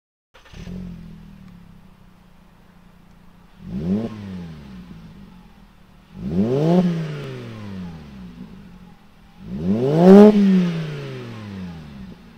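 Volkswagen Rabbit's 2.5-litre five-cylinder engine heard through a MagnaFlow Touring Series cat-back exhaust. It idles steadily, then is revved three times while standing, each rev climbing higher and louder than the last before falling back to idle.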